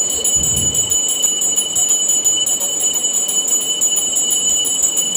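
Puja bell rung rapidly and continuously during worship, a steady clanging ring of many strokes a second.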